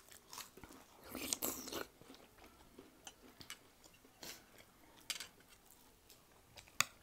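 People biting and chewing crisp potato biscuits close to the microphone: a run of crackly crunches about a second in, then single crunches every second or so.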